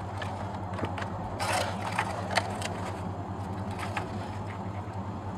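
Light scrapes and faint clicks of EPP foam airframe pieces being pressed together and handled by hand, over a steady low hum, with a short hiss about one and a half seconds in.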